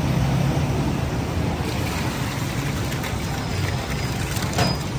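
Steady low rumble of busy street noise, like passing traffic, with a couple of faint clicks about four and a half seconds in.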